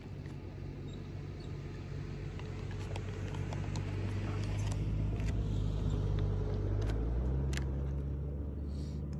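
A car driving slowly past, its steady engine hum building to its loudest about two-thirds of the way through, shifting pitch, then fading near the end, with a few light clicks over it.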